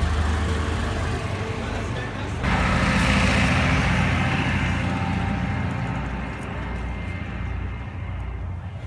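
Tourist road train's engine running as it drives past with its open carriages. About two and a half seconds in the sound jumps suddenly louder, then fades gradually as the train moves away.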